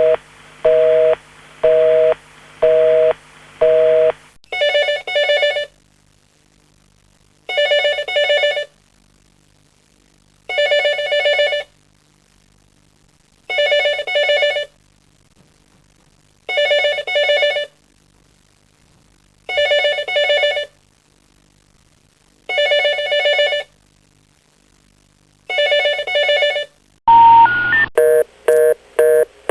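Telephone line signals in sequence. First a busy signal, a two-note tone pulsing about once a second. Then a telephone ringing in double rings, one about every three seconds. Near the end come three rising information tones, then a fast busy (reorder) signal pulsing about twice a second.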